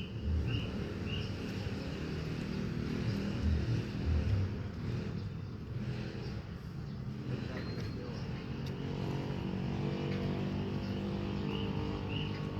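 A motor running with a low, steady hum that settles into an even pitch about two-thirds of the way through. A short high chirp repeats a few times at the start and again near the end.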